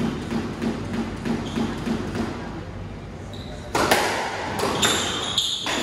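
A squash rally: the ball is hit with the rackets and knocks off the walls, and court shoes squeak on the hardwood floor. The hits and squeaks come in the second half.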